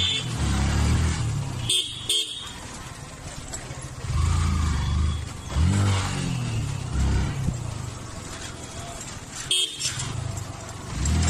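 Motorcycle engine running and revving up and down while riding slowly through street traffic, with vehicle horns honking. The sound briefly cuts out twice.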